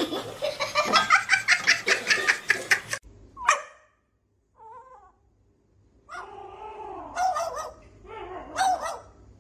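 A cat's rapid, stuttering chatter for about three seconds, then, after a short near-silent gap, several short yips and whines.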